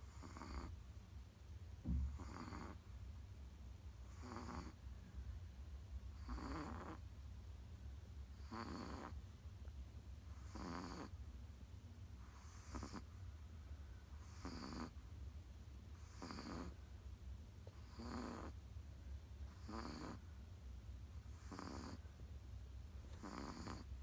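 Steady snoring, one snore roughly every two seconds, over a low steady hum. There is a short thump about two seconds in.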